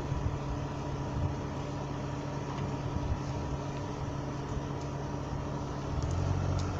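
A vehicle engine idling with a steady hum. A low wind rumble on the microphone builds near the end.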